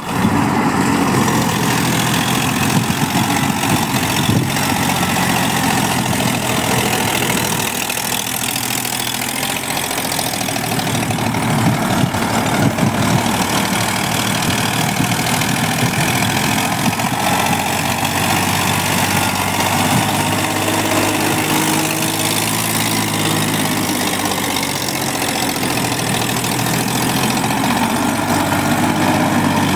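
Swaraj tractor's diesel engine running steadily under load while it pulls a rotary tiller through the soil.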